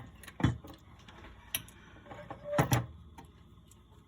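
A few scattered clicks and knocks of small tools and parts being handled on a workbench. The loudest is a double knock about two and a half seconds in.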